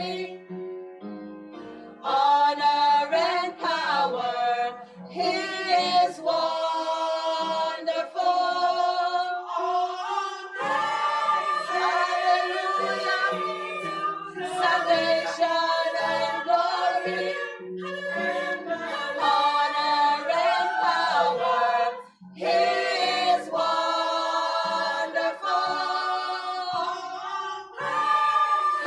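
Church choir singing in harmony with long held chords. It is softer for the first couple of seconds and breaks off briefly about 22 seconds in before coming back in full.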